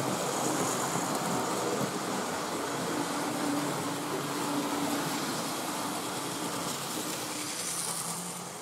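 Model train running on the layout: a steady electric motor hum and the rolling noise of wheels on the track.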